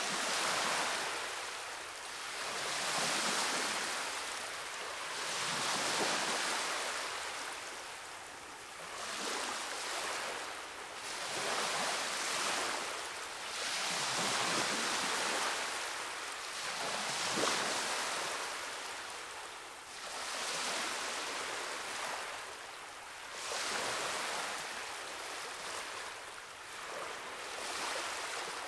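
Ocean surf washing against rocks, a steady hiss that swells and fades every few seconds as the waves come in.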